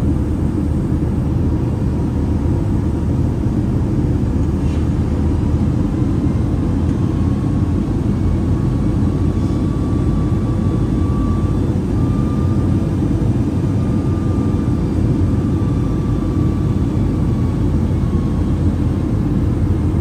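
Steady engine and airflow noise inside the passenger cabin of a Boeing 757-200 during its descent toward landing. A faint high tone wavers in pitch through the middle of it.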